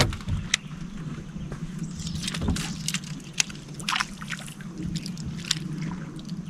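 Electric trolling motor humming steadily, with scattered sharp clicks and knocks from handling a rod and reel while casting and working a glide bait.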